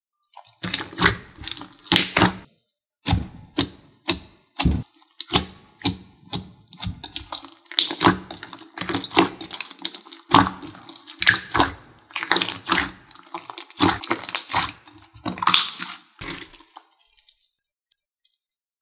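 Clear slime being squished, stretched and pressed by hand in a glass bowl: irregular wet squelches and sticky popping clicks, stopping near the end.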